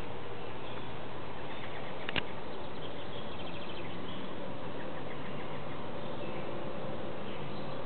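Faint birdsong over a steady background hiss, with a short rapid trill about three and a half seconds in. A single sharp click about two seconds in.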